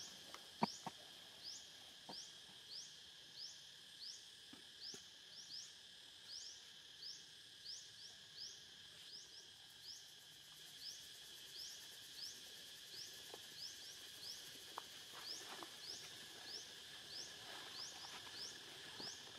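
Faint outdoor ambience: a steady high-pitched insect drone with a short rising chirp repeating about three times every two seconds, and a few faint scattered clicks.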